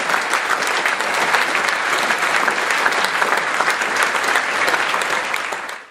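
Audience applauding: dense clapping that fades away in the last half second.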